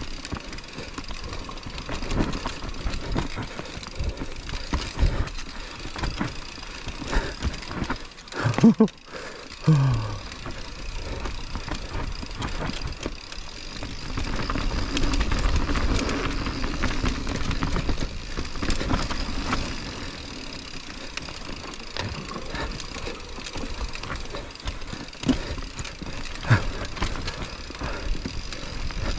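Mountain bike riding down a steep dirt trail: a steady rush of tyre and wind noise with rattling and a few sharp knocks, louder for a few seconds past the middle.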